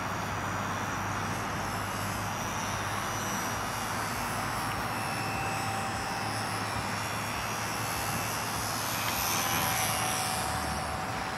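Radio-controlled Super Cub model plane flying overhead, its electric motor and propeller making a faint whine that drifts slowly in pitch over a steady hiss, growing a little louder near the end.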